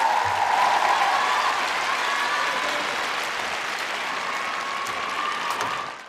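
Arena crowd applauding and cheering, with high calls over the clapping. It dies down sharply near the end.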